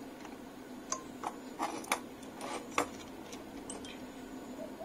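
Small sharp clicks and taps of metal tools and component leads against a circuit board during hand soldering, about eight in three seconds, some with a brief light ring. A steady low hum underlies them.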